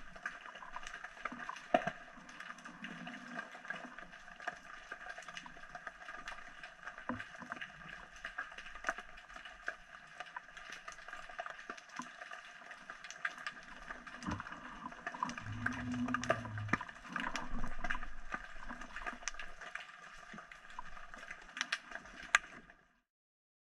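Underwater sound picked up by a submerged camera: a steady hiss with scattered sharp clicks and crackles, and a low rumble for a couple of seconds about fifteen seconds in. It cuts off suddenly near the end.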